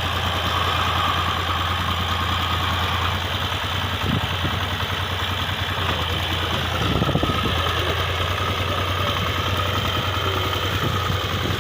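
Al Ghazi tractor's diesel engine running steadily with an even low hum, briefly louder about four and seven seconds in.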